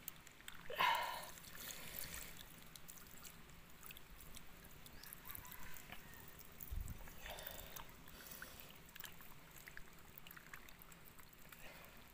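Water sloshing and splashing in a plastic basin as raw pork intestines are pressed down and kneaded by hand to rinse them, with the loudest splash about a second in and another smaller one later.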